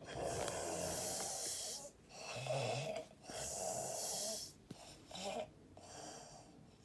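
A woman sick and asleep, snoring with her mouth open, louder than usual. About five harsh rasping breaths come in and out in quick succession, one of them with a low buzzing rattle.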